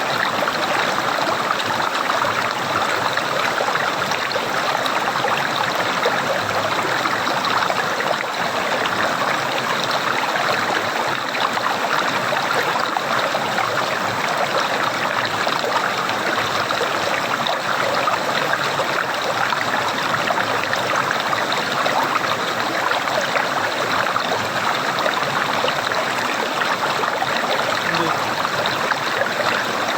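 Running water gurgling and trickling steadily, a continuous babble that holds an even level throughout.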